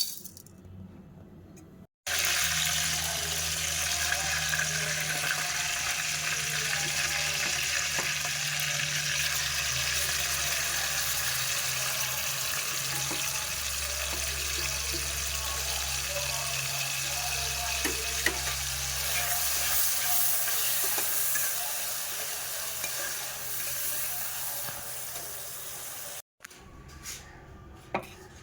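Food frying in hot oil in a cooking pan, sizzling steadily with a low hum beneath it. It cuts in suddenly about two seconds in and cuts off near the end.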